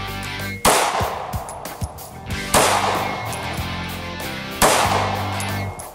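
Three shots from a Ruger SR9c 9mm pistol, about two seconds apart, each ringing out and fading, over steady background music.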